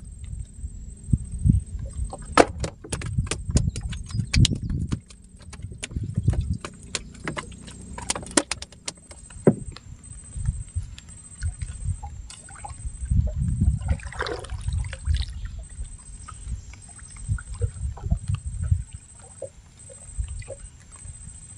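Wooden canoe on the water, with low, uneven knocks and water slapping against the hull. For several seconds near the start there is a run of small sharp clicks and rattles from the handline and tackle being handled, and a short swish about two-thirds of the way through.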